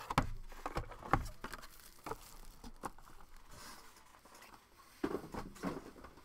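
Cardboard trading-card boxes and foil packs handled on a tabletop: a run of light knocks and taps in the first second or so, a soft rustle midway, and another short cluster of taps about five seconds in.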